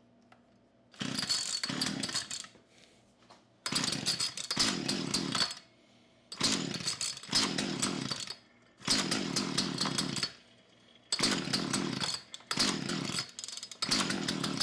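A 1975 Poulan Wood Shark two-stroke chainsaw being pull-started, about six pulls a couple of seconds apart. Each pull spins the engine with a falling whir that dies away without the engine catching; the owner puts the slow start down to oil he sprayed on the cylinder.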